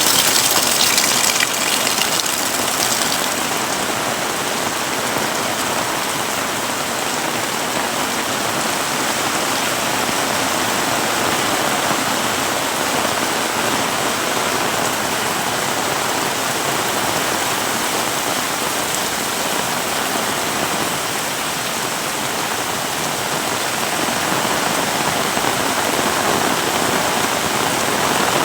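Heavy rain pouring steadily, a dense even hiss of water, with a brighter hiss in the first few seconds that fades.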